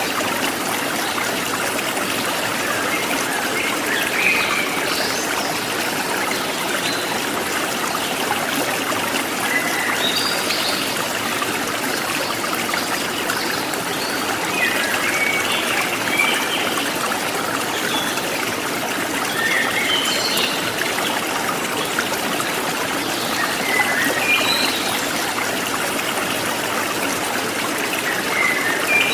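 A stream of water trickling and flowing steadily, with birds giving short chirps every few seconds over it.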